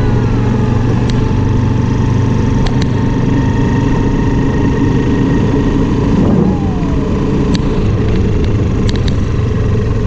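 Motorbike engine running steadily under way, a constant low hum, with wind rumbling on the handlebar-mounted camera's microphone.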